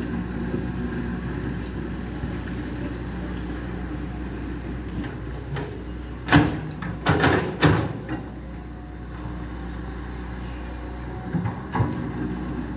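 CAT hydraulic excavator's diesel engine running steadily while it digs, with a burst of several loud knocks and scrapes from the bucket working dirt and gravel about six to eight seconds in, and two more near the end.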